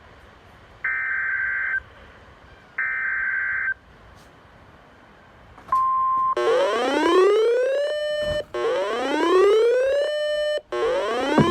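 EAS/SAME digital header data bursts from NOAA Weather Radio: two harsh buzzy one-second bursts about a second apart, announcing an incoming alert. About six seconds in comes a short steady beep, then a siren-like alert tone that rises in pitch and repeats about every two seconds.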